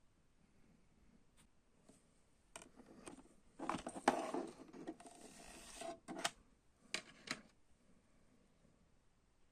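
A CD album package being handled: about two seconds of rustling and scraping of plastic and paper, with a few sharp clicks and taps before and after.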